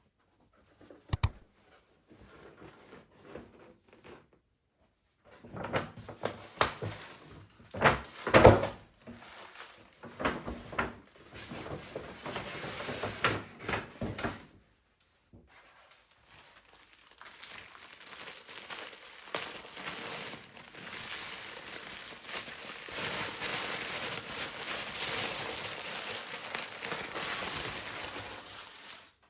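Household handling sounds: a couple of sharp knocks, then clatter and rustling, then a steady hiss for the last ten seconds or so.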